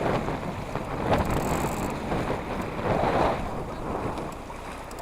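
Wind buffeting the microphone over water splashing and rushing, aboard a small sailboat, with louder gusts about one and three seconds in.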